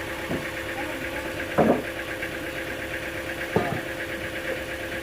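An engine idling steadily, with three short knocks, about half a second, a second and a half and three and a half seconds in; the middle one is the loudest.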